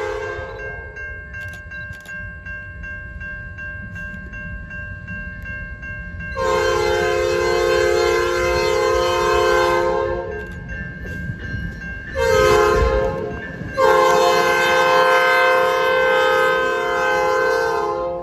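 CN freight locomotive's air horn: one blast ends just after the start, then after a pause comes a long blast, a short one and a final long one, the close of the long-long-short-long grade-crossing signal. The locomotive's low rumble runs underneath.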